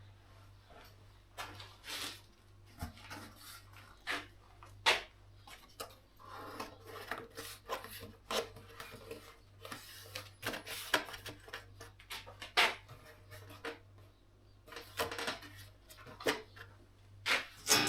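Irregular clicks, knocks and scraping, as of parts and tools being handled on a workbench, over a faint steady low hum.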